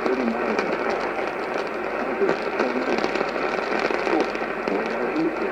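Weak AM radio reception: a steady wash of static hiss with light crackle, a faint broadcast voice coming through now and then.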